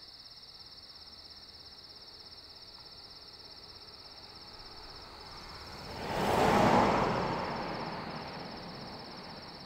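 Crickets chirping steadily in a high, fast trill. About six seconds in, a car passes by, its road noise swelling to a peak and then fading away.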